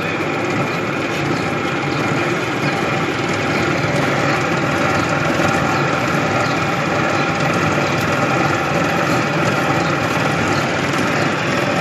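Cotton candy machine running, its motor and spinning head making a steady mechanical hum.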